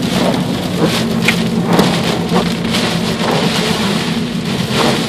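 Heavy rain pelting a car's windshield and body, heard from inside the cabin as a dense patter with many sharp drop strikes, over the steady low hum of the moving car.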